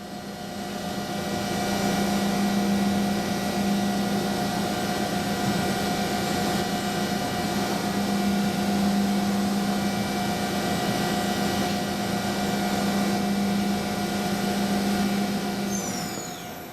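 Mori Seiki NMV1500 machining centre running while milling a 7075 aluminium impeller: a steady hum with a higher whine and several fainter tones over an even hiss. Near the end the hum stops and a few high falling whistles sound.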